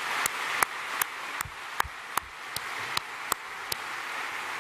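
Audience applause, with one man's hand claps right at the microphone standing out in an even beat of about two to three claps a second. His clapping stops a little before the end while the applause carries on.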